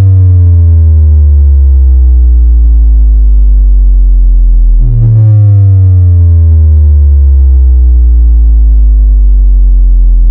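Synthesized sub-bass kick test tone: two long, very loud bass notes, the second struck about five seconds in, each starting with a sharp hit and then held with its pitch sliding slowly down.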